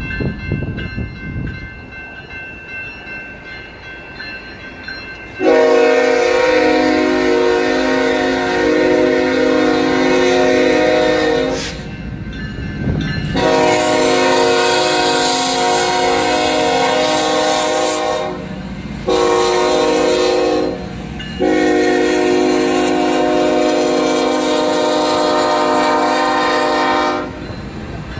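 BNSF diesel locomotive's air horn sounding the grade-crossing signal, long, long, short, long, as the train reaches the crossing, over the low rumble of the train.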